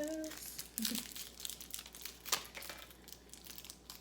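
Plastic sweet wrapper crinkling and being torn open, in faint scattered rustles with a few sharper crackles.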